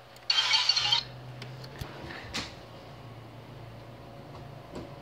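A short snatch of music playback that cuts off suddenly after under a second, then quiet room tone with a steady low hum and a few faint clicks.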